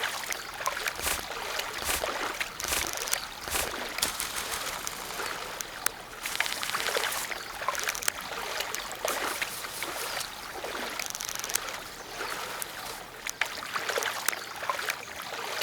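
Water of a stream or river trickling and babbling, with many small irregular splashes.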